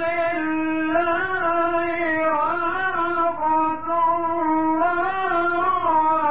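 A male Quran reciter's voice holding one long melodic, elongated phrase in unbroken breath, the pitch wavering in slow ornaments around a steady held note.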